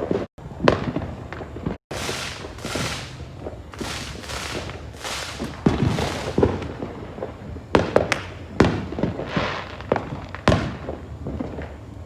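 Many fireworks going off at once across a neighbourhood: a dense run of overlapping bangs and crackling. Sharp, louder reports stand out every second or so, and the sound cuts out briefly twice near the start.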